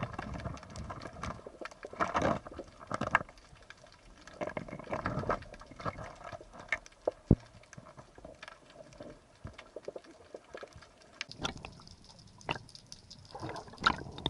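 Underwater sound picked up by a camera during spearfishing: irregular knocks, clicks and bursts of water noise, with a single sharp crack at the very start.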